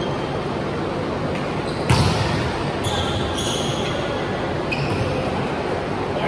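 A volleyball is struck once, a sharp slap about two seconds in, against a steady noise of the large hall. Brief high squeaks follow a second later.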